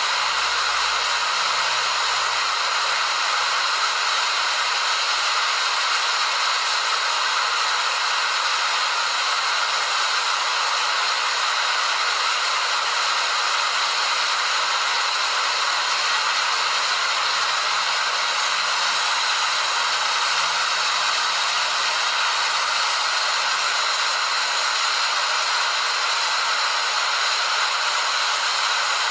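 Waterfall rushing steadily, a constant even hiss with little low rumble.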